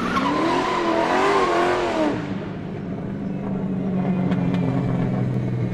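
Car drifting sound effect: tyres squeal with a wavering pitch over a hiss for about two seconds, then the engine runs on at a steady low note.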